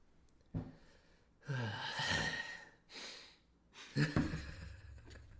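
A man laughing without words in several breathy bursts of sighs and gasps. The longest and loudest comes about a second and a half in and lasts about a second.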